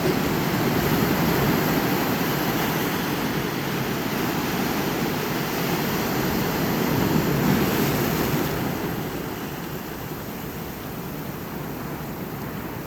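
Ocean waves washing onto a shore in a steady rush, swelling about a second in and again around seven to eight seconds, then easing off.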